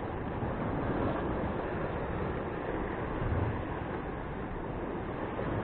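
Surf washing against the rocks, mixed with wind on the microphone: a steady rushing noise.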